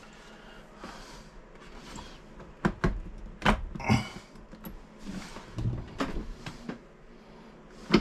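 Scattered knocks and light clatter from handling tools and plastic parts at the base of an RV toilet, with three sharper knocks about a third to halfway through.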